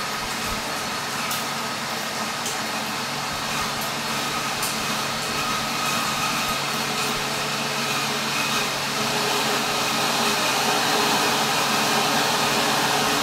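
Dyson bladeless tower fan running: a steady rush of air with a faint motor hum. It grows a little louder over the last few seconds.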